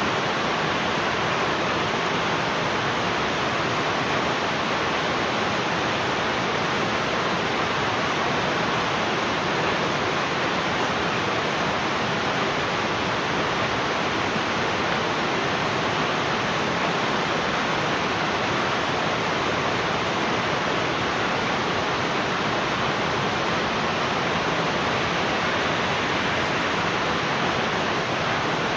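Heavy rain falling: a steady, even rush of noise that does not change.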